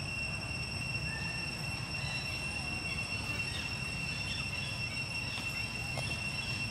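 Steady insect drone: one unbroken high tone with fainter overtones, over a low outdoor rumble, with a few faint short chirps scattered through.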